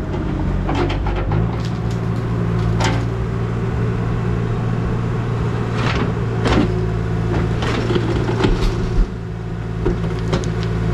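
Excavator's diesel engine running under load, picking up about a second and a half in, with scattered clanks and knocks from the digging.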